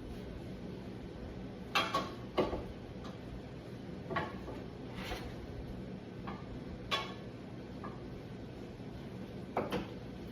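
Short, scattered clinks and knocks of a utensil against a small container and dishes as orzo is spooned in and packed for plating, about ten in all, the loudest about two seconds in. A steady low hum runs underneath.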